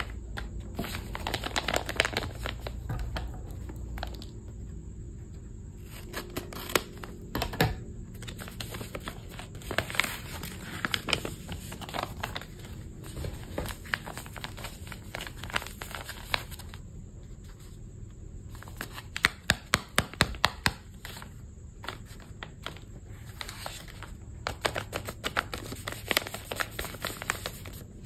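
Hands handling crinkly paper and tape, with irregular rustling and sharp clicks, including a quick run of about six loud clicks roughly two-thirds of the way through.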